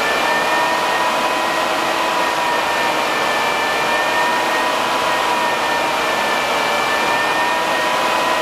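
A DC cooling fan running on a 12 V switching power supply: a steady rush of air with a few thin whining tones. Its speed follows the supply's output voltage, which is being raised to about 13 V.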